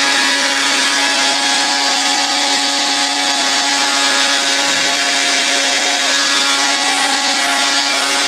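Preethi Popular mixer grinder running steadily, blending frozen milk and ripe bananas into a shake: a loud, even motor hum with a whirring rush.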